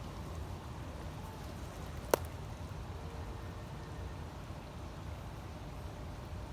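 Steady low rush of a small stream's flowing water, with one sharp click about two seconds in.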